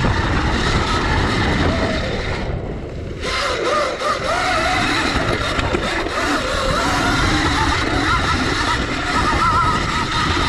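CZEM Drill One electric dirt bike ridden hard in its racing power mode: the electric motor's whine rises and falls with the throttle over loud chain-drive noise, with a short let-off about two and a half seconds in.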